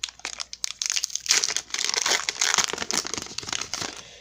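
Foil Pokémon booster pack wrapper being torn open and crinkled: a few scattered crackles at first, then dense crinkling and tearing from about a second in, fading out near the end.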